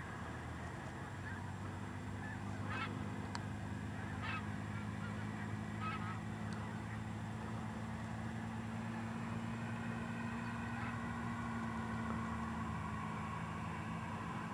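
Faint short honking calls, three spaced about a second and a half apart, over a steady low hum.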